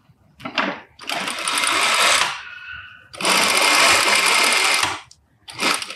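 Industrial straight-stitch sewing machine sewing through layers of fabric in bursts: a brief one about half a second in, then a run of about a second, a pause, and a longer run of about two seconds, with another short burst near the end.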